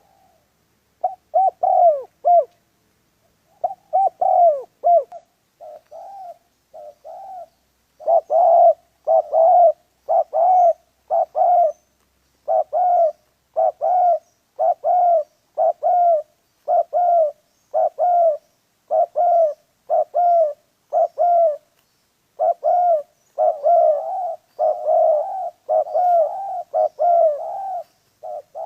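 Spotted dove cooing over and over in short notes, about one or two a second, briefly quieter around six seconds in and closer together near the end.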